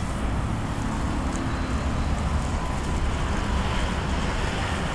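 Steady road traffic on a busy city avenue: cars passing.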